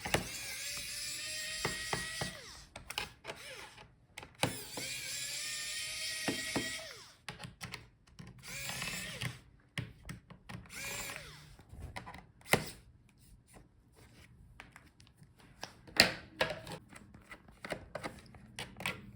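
Electric screwdriver spinning in bursts, backing out a laptop's bottom-case screws, its motor pitch rising a little in each of two longer runs. Shorter runs follow, then scattered sharp clicks and taps near the end.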